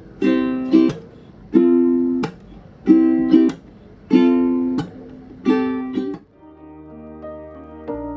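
Background music: plucked-string chords strummed in a repeating pattern of short pairs, giving way about six seconds in to softer held tones.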